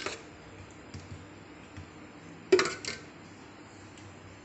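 A kitchen utensil knocking and clinking against a metal container, two sharp strikes with brief ringing about two and a half seconds in, over a faint low hum.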